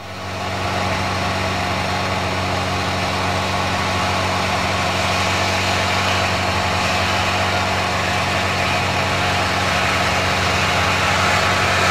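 1979 Polaris TX 440 snowmobile's two-stroke twin engine running at a steady, even pitch as the sled comes closer, growing slightly louder toward the end.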